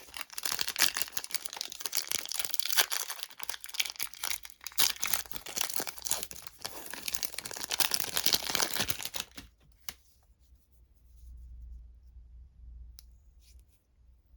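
A plastic or foil candy wrapper being torn open and crinkled by hand, a dense run of crackles that stops about nine and a half seconds in. After that only a few faint ticks remain.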